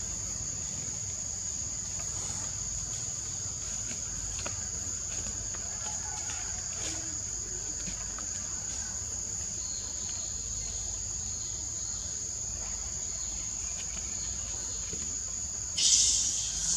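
Steady high-pitched insect chorus, crickets or cicadas, in forest. A louder, hiss-like buzz sets in about a second before the end.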